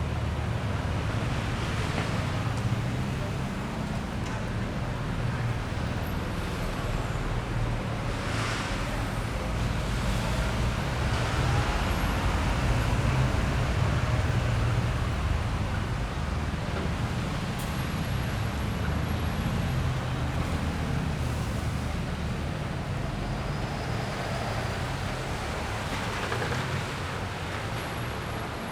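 Steady rumble of road traffic on a city street, with no single vehicle standing out.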